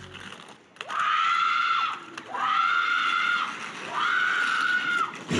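A person screaming three times: long, high-pitched screams of about a second each, each sliding up at the start and dropping off at the end.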